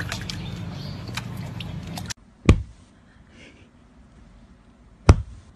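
A steady low rumble with scattered clicks cuts off abruptly about two seconds in. Then come two dull, heavy thumps about two and a half seconds apart.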